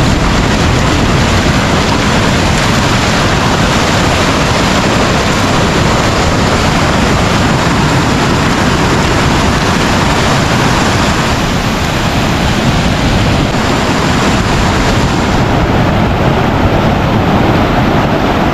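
Ocean surf washing up the beach and breaking, heard as a loud steady rush, mixed with wind buffeting the microphone.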